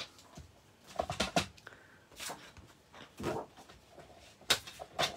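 Vaessen Creative plastic paper trimmer and a sheet of cardstock being handled and set in place on the cutting board: a few light knocks and clicks, with two softer paper sounds in between.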